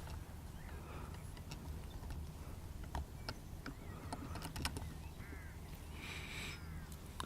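Quiet outdoor ambience with a steady low wind rumble, a few faint handling clicks, and several bird calls, including a harsher call about six seconds in.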